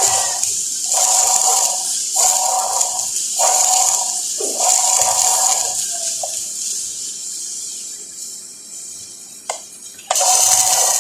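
Flux-core wire welder arc crackling in bursts of about a second with short pauses between, a steady tone under each burst. The bursts stop about six seconds in, a single click follows, and welding starts again near the end.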